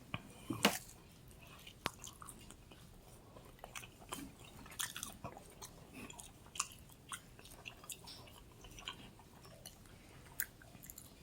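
Close-up chewing of a mouthful of pepperoni pizza: irregular wet mouth clicks and smacks, with a louder bite about half a second in.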